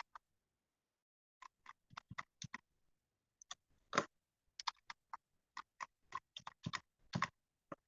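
Computer keyboard keys being typed: a run of about twenty short, uneven clicks, typing a password into a setup form.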